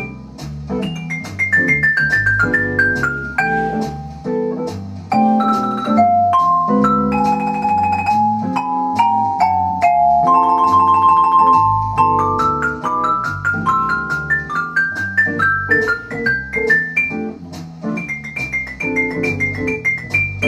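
Vibraphone played with mallets in an improvised jazz solo: quick runs of ringing metal-bar notes, with held, trembling notes around the middle. Underneath runs an accompaniment with a low bass line.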